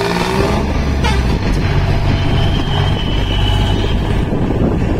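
John Deere tractor's diesel engine running hard under heavy load as the tractor rears up and stands on its rear wheels, with a continuous loud drone that shifts in pitch.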